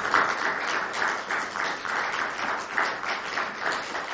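Audience applauding, a dense patter of many hands clapping that thins toward separate claps near the end.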